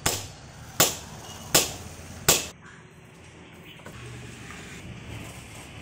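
Four hammer blows on a brick gate pillar, evenly spaced about three-quarters of a second apart, knocking the brickwork loose. Only fainter small knocks follow.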